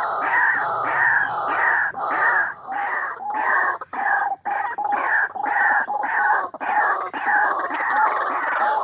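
White-breasted waterhen calls repeated in a rapid run, about two a second.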